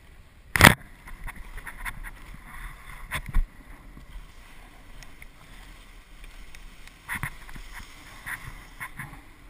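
Snowboard sliding over snow, a steady scraping hiss of the board's base and edges. A few sharp knocks from the camera being bumped, the loudest about half a second in, others around three and seven seconds.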